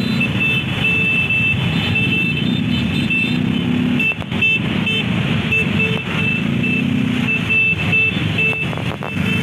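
Engines of many motorcycles riding together in a convoy, a steady low rumble, with short high horn toots repeated on and off.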